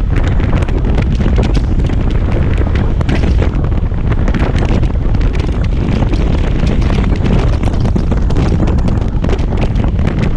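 Steady, loud wind rushing and fluttering over the microphone of a moving Kymco Xciting 250i scooter. The scooter's running and road noise is mixed in underneath.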